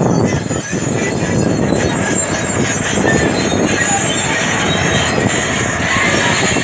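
Caterpillar crawler bulldozer's diesel engine running under load as the machine tracks forward and pushes earth with its blade, with metallic squealing and clatter from its steel tracks, most prominent about six seconds in.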